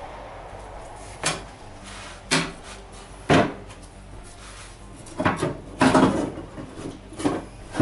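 Plastic fender assembly of a Craftsman DLT 3000 lawn tractor knocking and rattling as it is worked loose by hand: three separate knocks about a second apart, then a quicker run of clatter near the end.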